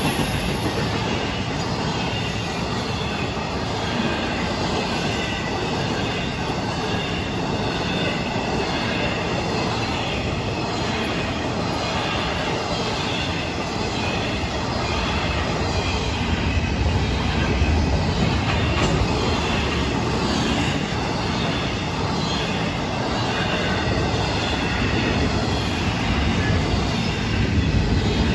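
Florida East Coast Railway intermodal freight cars rolling steadily past, their wheels running on the rails in a continuous rumble with a faint high squeal.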